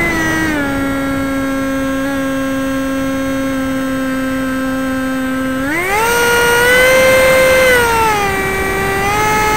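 Talon RC model plane's motor and propeller whining in flight, with air rushing past, heard through a camera mounted on the plane's tail. The pitch dips slightly about half a second in, holds steady, then climbs sharply about six seconds in as the throttle opens, and eases back down near the end.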